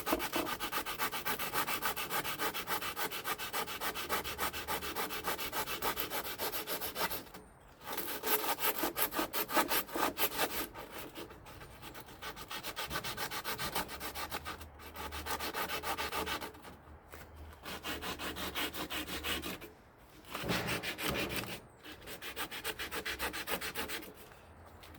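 Rust being ground and scrubbed off a crusty metal part: dense abrasive scraping in several runs of a few seconds, with short sudden breaks in between.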